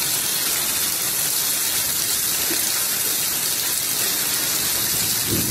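Heavy rain pouring down steadily onto a flooded yard, a dense even hiss. A low rumble swells in near the end.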